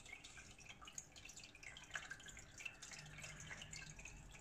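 Near silence: faint room tone with scattered soft ticks.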